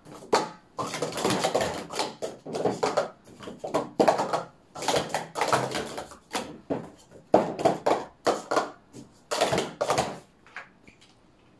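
Plastic sport-stacking cups clicking and clattering rapidly on a stacking mat as they are stacked up and down through a cycle sequence. The clatter comes in quick clusters and stops near the end.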